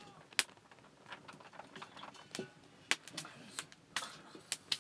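Dry sticks and kindling snapping and crackling at a small wood cooking fire: irregular sharp cracks, most of them in the second half.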